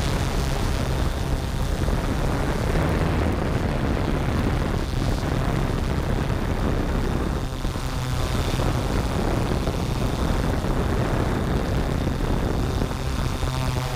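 Yuneec Typhoon G quadcopter's electric motors and propellers buzzing in flight, picked up by the GoPro it carries: a steady low hum with small shifts in pitch.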